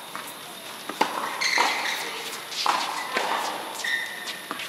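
Tennis rally: a ball struck by rackets and bouncing on a hard court, sharp pops about a second apart that echo in a large hall, with sneakers squeaking on the court surface.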